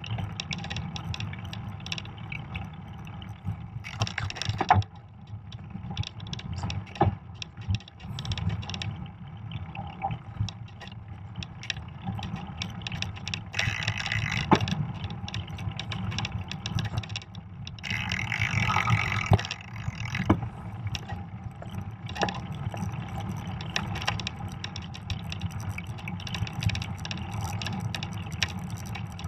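Fat bike riding over snow: a steady low rumble from the wide tires with frequent rattles and knocks from the bike, and three short bursts of hiss, a few seconds in, near the middle, and shortly after.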